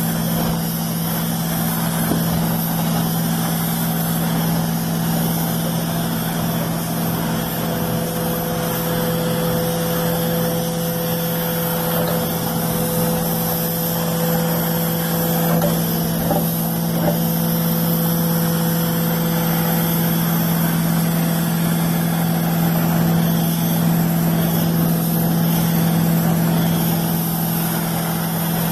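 Truck-mounted carpet extraction unit running steadily, its vacuum pulling through the hose and cleaning wand as steaming hot water is sprayed into the carpet and sucked back up: a constant hum over a hiss, with a faint high whistle joining for a while in the middle.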